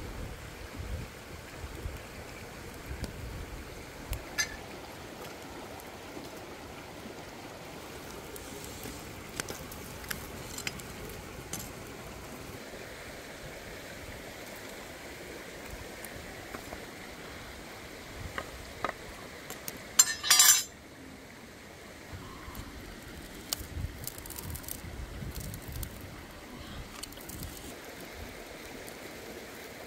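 Steady rush of a stream over rocks, with scattered knocks and clinks of wood and bamboo being handled on stones. About twenty seconds in comes a loud, rattling clatter lasting about half a second.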